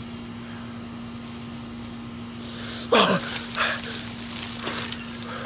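Thick smoothie splattering as it is poured from a pitcher over a person's head and body, starting about two and a half seconds in, with a loud yelp that slides down in pitch about three seconds in.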